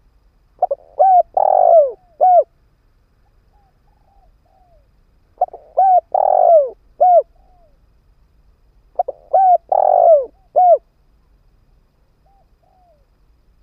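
Spotted dove cooing its multi-note song phrase three times, about every four seconds, with softer short coos between phrases. This is a decoy male's calling, used to draw wild doves in.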